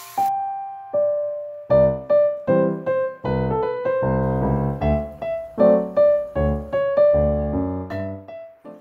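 Background piano music: a gentle melody of single notes, joined by fuller chords in the low register about two seconds in, fading out at the end.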